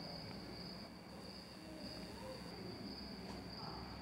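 Faint, steady, high-pitched tone over a low background hiss.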